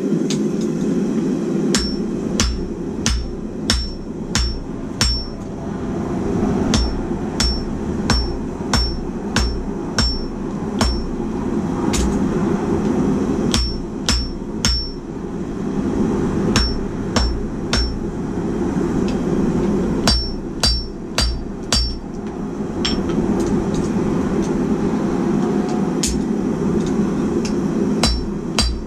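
Hand hammer forging hot steel on an anvil: runs of blows about two a second, each with a high metallic ring, broken by short pauses between runs. A steady low rushing noise runs underneath.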